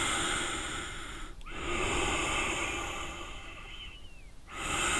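A person breathing slowly and deeply, each breath in or out a long rush of air lasting about two seconds, with short pauses between them.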